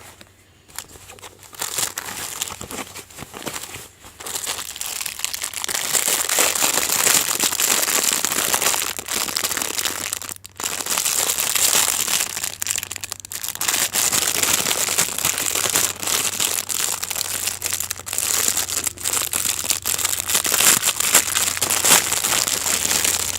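Thin foam packing wrap and plastic packaging being pulled off and handled, a continuous crinkling and rustling with many small crackles, quieter for the first few seconds and busier after.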